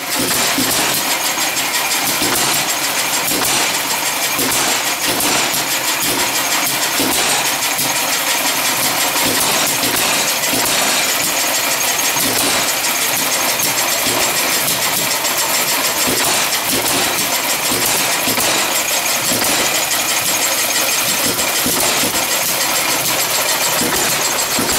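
Eclipse stationary gas engine running steadily, with a fast, even mechanical clatter.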